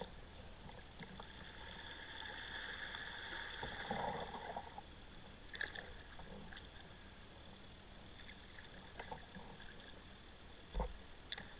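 Faint sound of a kayak being paddled on calm water: paddle blades dipping and water splashing and dripping. A few short splashes and knocks come through, the loudest a dull low knock near the end.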